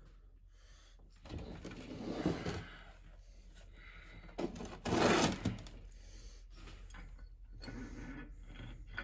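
Metal parts and tools being handled and shifted on a workbench: a few short scraping, clunking movements, the loudest about five seconds in.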